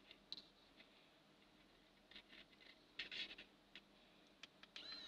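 Faint scattered clicks and scratches as a 3D printing pen is handled over paper, loudest around three seconds in. Near the end the pen's small filament-feed motor starts with a high, slightly wavering whine.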